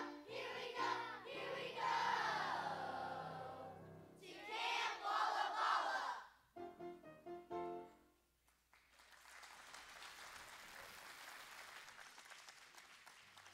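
Children's choir singing a song with accompaniment, which ends about six seconds in with a few short closing notes. After a brief pause the audience applauds steadily.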